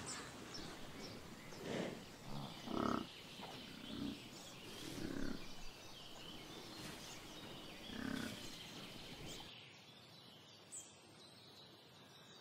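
Greek water buffaloes grunting: several short, low grunts over the first nine seconds, the loudest about three seconds in.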